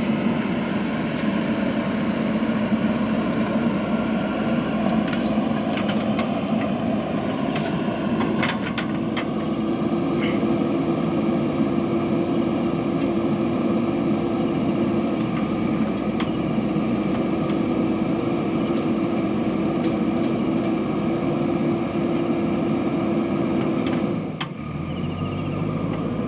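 JCB 3DX backhoe loader's diesel engine running hard and steady. About 24 seconds in, the note dips and comes back lower.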